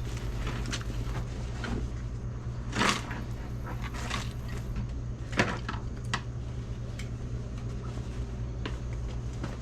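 A steady low hum with a run of sharp knocks and clunks, the loudest about three seconds in and again a little after five seconds.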